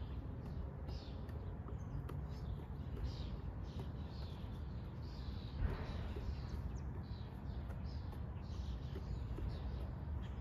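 Wild birds chirping repeatedly over a steady low outdoor rumble. About halfway through, a single thump of a basketball bouncing on the concrete court.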